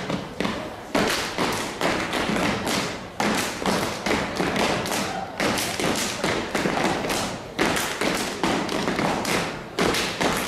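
A children's step team stepping: rhythmic foot stomps on the stage floor mixed with hand claps, several beats a second in a fast, driving pattern with short breaks.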